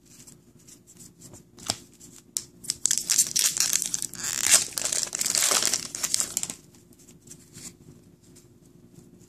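Foil wrapper of a 2014-15 Upper Deck Series 1 hockey card pack being torn open and crinkled by hand. It starts with scattered crackles, gets dense and loud for a few seconds in the middle, then dies away.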